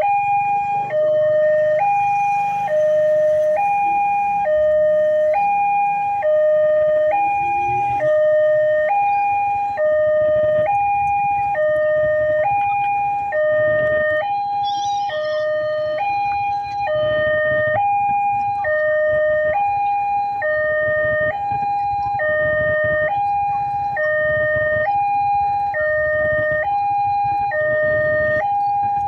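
Electronic railway level-crossing alarm sounding from the loudspeaker on the signal post. It is a steady two-tone warning that alternates evenly between a higher and a lower tone, each held about a second, signalling that a train is approaching and the crossing is closed.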